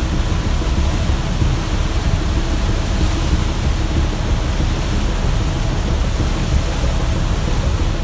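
A loud, steady rushing noise with a heavy, fluctuating low rumble.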